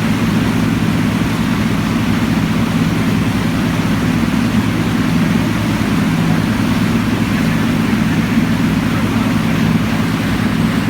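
Outboard motor running steadily at a constant speed.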